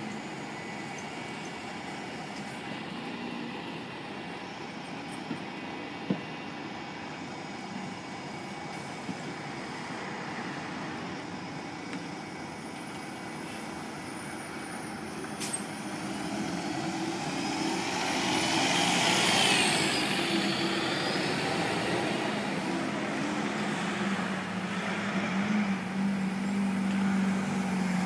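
City bus traffic at a bus stop: steady street and engine noise, swelling as a vehicle passes close about two-thirds of the way in. Near the end a bus's engine hum rises and grows louder as the bus draws up to the stop.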